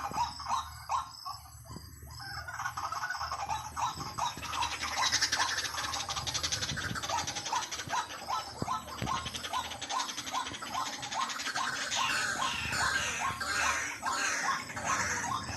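White-breasted waterhen calls played as a decoy recording: a long run of short, repeated "kwak" notes at about two to three a second, with faster, higher chatter layered over them partway through.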